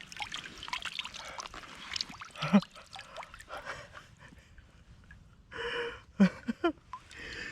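Water trickling and splashing as a large brown trout is handled in a landing net, with scattered small knocks and one sharp loud splash or knock about two and a half seconds in. A few short voice-like sounds come near the end.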